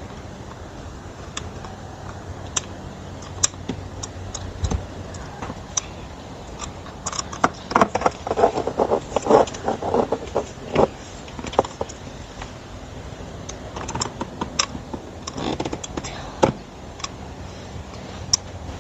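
Irregular clicks, taps and light rattles of hard plastic and metal parts being handled while a wheel is fitted to a kids' electric ride-on car, with a screw being taken out. The clicks bunch up about halfway through and again near the end.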